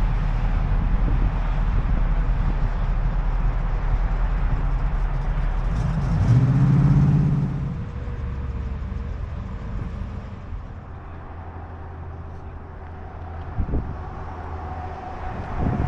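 Car engine running with a low rumble that swells and rises in pitch about six seconds in, then settles to a quieter hum. Two short knocks come near the end.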